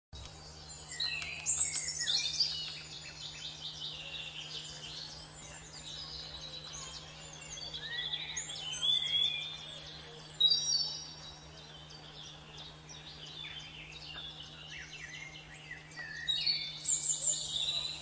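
Several songbirds singing in woodland, overlapping whistled and trilled phrases that come in three louder bouts. A steady low hum runs underneath.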